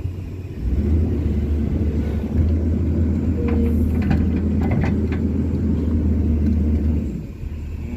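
Strong wind of an approaching sandstorm buffeting the microphone: a heavy, deep rumble that swells up about half a second in and drops away near the end.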